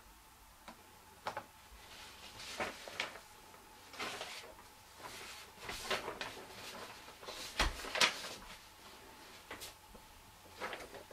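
Handling noise: a series of irregular clicks, knocks and short rustles, the loudest pair about eight seconds in.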